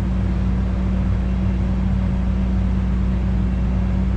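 Tractor engine running steadily, heard from inside the cab: a constant low drone with a steady hum.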